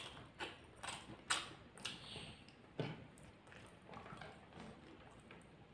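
Hand-eating sounds: fingers gathering fried rice grains on a wooden tray and the mouth chewing, a faint string of irregular clicks and wet smacks, a few of them sharper.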